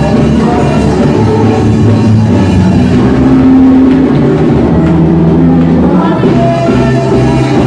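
Loud live worship music: a band playing with voices singing over it, continuous throughout.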